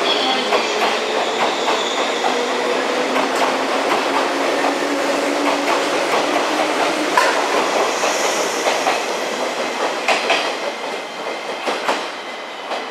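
485-series electric multiple unit 'Yū' pulling out of a station past the platform, its wheels clattering over rail joints and points. The sound eases and grows uneven as the last car goes by near the end.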